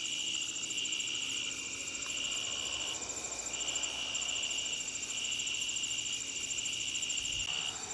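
Crickets singing in chorus: one trilling in stretches of a second or so with short breaks, over a higher, steady pulsing song from others.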